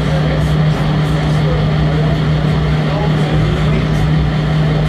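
Steady, unbroken hum from a radio-controlled scale crane truck running as its loader crane holds and slowly shifts a suspended concrete block.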